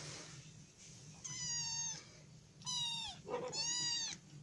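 Kitten meowing three times in quick succession, high thin calls each under a second long.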